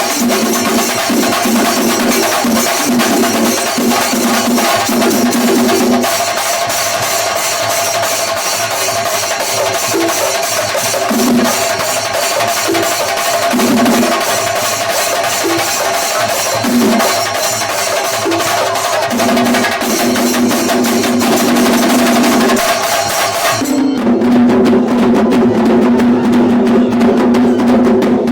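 Singari melam: a group of chenda drums beaten in a fast, continuous rhythm with ilathalam cymbals, and a steady pitched drone underneath. Near the end the bright cymbal wash drops away abruptly while the drums carry on.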